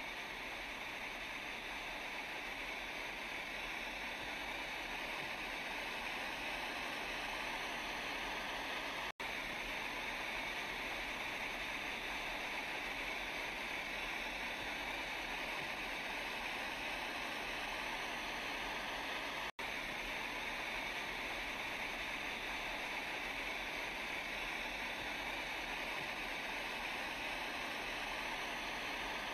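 Steady rushing of tsunami flood water, a simulated water sound. It drops out for an instant twice, about ten seconds apart.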